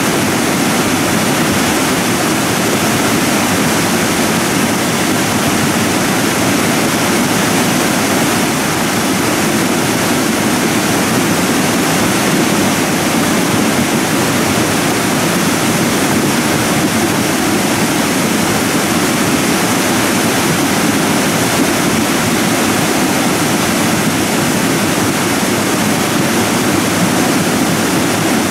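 Debris flow of mud and stones running down a gully in morainic deposit: a loud, steady rushing like a waterfall, without a break.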